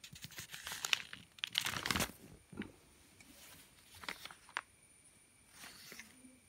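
Notebook paper pages rustling and crinkling as they are turned and handled. A run of rustles in the first two seconds, then a few shorter ones around four seconds in and near the end.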